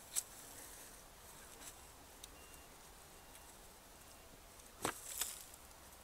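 Hands rummaging by hand through dry straw mulch and soil, with a sharp crackle of straw just after the start and a few more about five seconds in.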